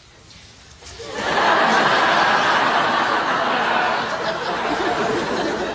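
Studio audience laughing, starting about a second in after a brief hush and holding steady.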